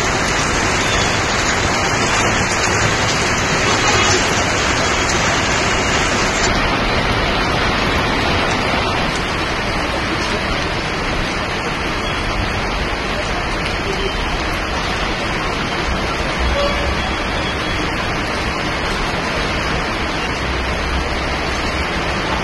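Heavy rain falling steadily and splashing on paved ground, a dense, even hiss.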